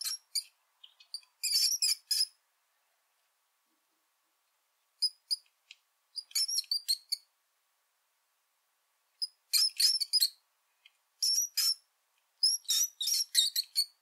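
Mouse squeaking: quick clusters of short, high-pitched squeaks, several to a cluster, with silent gaps of a second or more between clusters.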